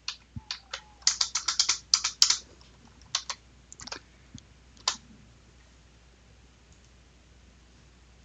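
Typing on a computer keyboard: a quick run of keystrokes over the first two and a half seconds, then a few scattered clicks up to about five seconds in.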